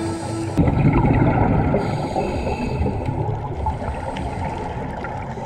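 Muffled underwater noise through a diving camera's housing: a steady low rushing rumble of water. A held note of background music cuts off about half a second in.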